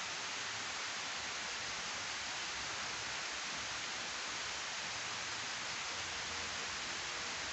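Water rushing steadily down a sloping weir spillway and splashing into the channel below, an even, unbroken rush.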